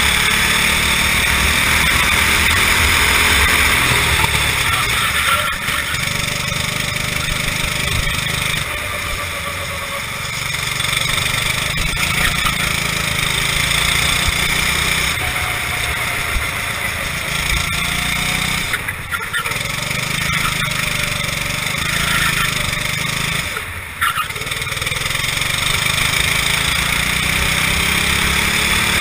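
Racing kart engine heard from onboard at full race pace, its revs climbing along the straights and falling back into the corners, cut sharply twice in the later part as the throttle is lifted.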